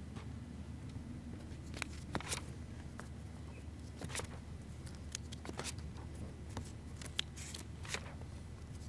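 Footsteps and the handling of paper sheets at a lectern microphone: a scattering of short ticks, crinkles and rustles over a steady low hum.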